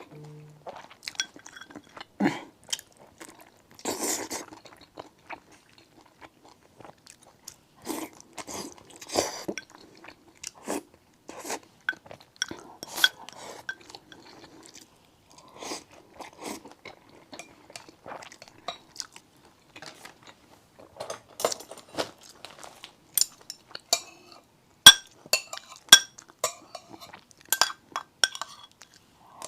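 Close-miked eating: irregular crunching and chewing sounds, with a run of sharp clinks of dishes or utensils in the last few seconds.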